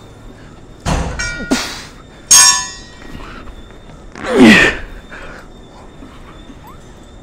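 Metal clanks from a plate-loaded T-bar row machine as the weighted lever arm is rowed and lowered: a knock, then two ringing clangs about a second apart, the second the louder. About four and a half seconds in comes a loud hissing sound that drops in pitch.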